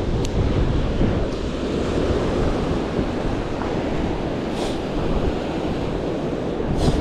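Ocean surf washing against jetty rocks, with wind buffeting the microphone as a steady low rumble. A couple of brief hisses come through late on.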